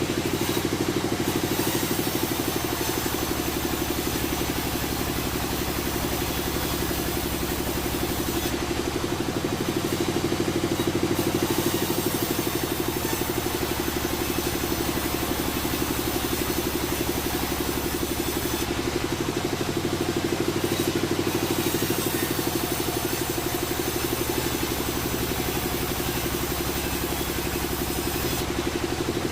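Sawmill machinery running with a steady mechanical drone; a deeper hum underneath drops out and comes back a few times, about every ten seconds.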